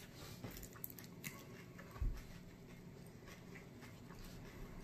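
Faint small clicks and crunches of a stale Paqui One Chip tortilla chip being chewed, with a soft low thump about two seconds in.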